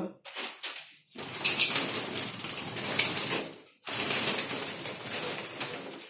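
Lovebirds flapping their wings in a wire-mesh cage as a hand reaches in to catch them, in three long flurries. A short sharp high call comes about a second and a half in and again about three seconds in.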